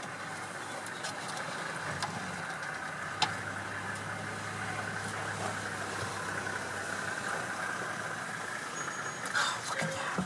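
A motor vehicle's engine idling steadily, a low hum that is strongest through the middle. A single sharp click comes about three seconds in, and a few clicks and knocks come near the end.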